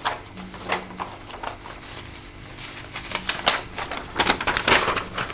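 Paper quick start guide being unfolded by hand: crisp rustling and crackling with scattered light taps, heaviest about four seconds in.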